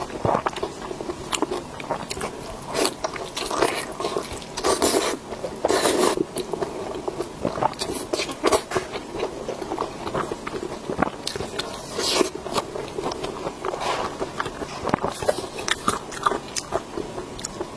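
Biting and chewing pork intestine bundles: a dense run of short mouth clicks and smacks, with louder bites around five, six, twelve and fifteen seconds in.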